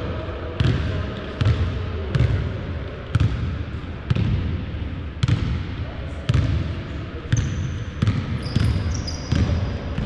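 A basketball being dribbled on a hardwood court, steady bounces about one a second, echoing in a large gym. A few short, high sneaker squeaks on the floor near the end.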